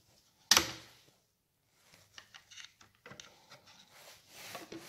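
A single sharp knock of something hard set down or struck, then scattered light clicks and rustling of objects being handled.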